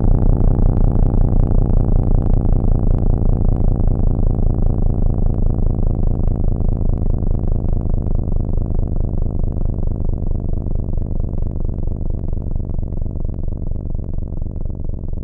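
Federal Signal Thunderbolt 1003A mechanical outdoor warning siren winding down, its steady tone sinking slowly in pitch and getting quieter, with a fast regular pulsing. This is the siren coasting down at the end of its test run.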